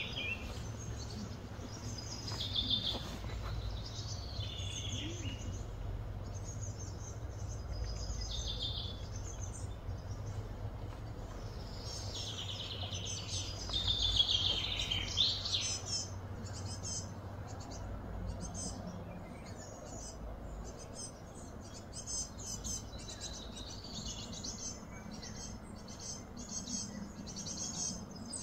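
Birds chirping and calling, busiest about halfway through, over a steady low background rumble.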